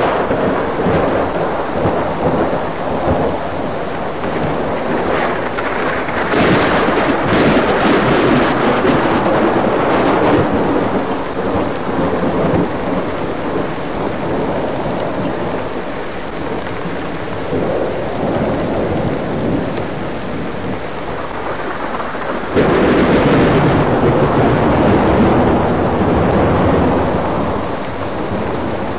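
Heavy rain falling steadily with thunder rumbling through it, swelling louder about six seconds in. A loud rumble of thunder starts suddenly about twenty-two seconds in and dies away near the end.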